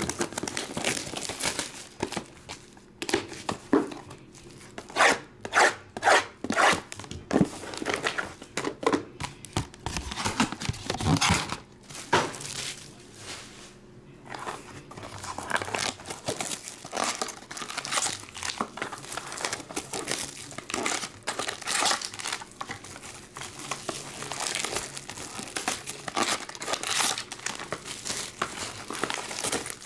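Clear plastic shrink wrap being torn and crinkled by hand as a sealed trading card box is unwrapped, in irregular rips and crackles, loudest between about five and twelve seconds in.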